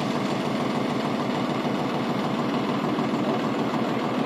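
Diesel farm engine idling steadily, with an even, rapid chugging.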